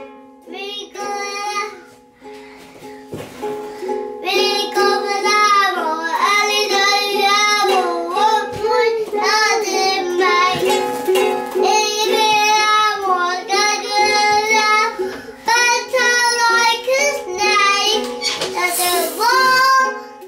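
A young child sings loudly over a toy ukulele strummed on the same repeating chord. The singing is sparse at first and becomes loud and continuous about four seconds in.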